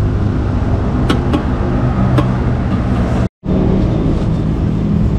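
Portable electric tyre inflator running with a steady motor hum while pumping up a motorcycle tyre that keeps losing air. The sound cuts out for a moment a little past halfway, then carries on.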